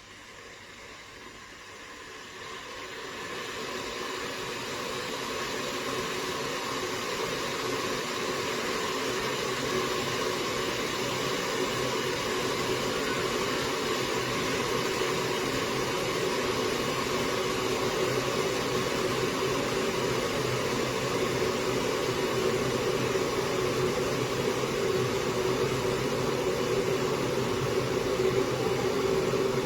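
Electric kettle heating water: a rushing hiss that swells over the first few seconds, then holds steady.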